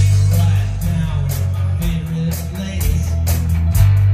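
Live rock band playing: electric guitar and bass over a drum kit, with regular cymbal and drum hits.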